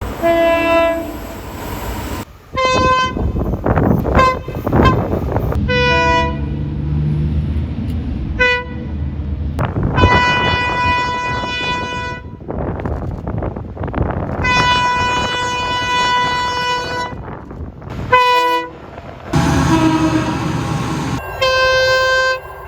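Train horns sounding in a run of spliced recordings, over the rumble of passing trains. There are several short toots and a few longer blasts, two of them lasting about two to three seconds.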